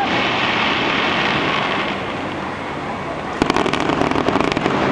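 Aerial fireworks exploding: a dense noise of bursts, then a rapid run of crackling pops starting about three and a half seconds in.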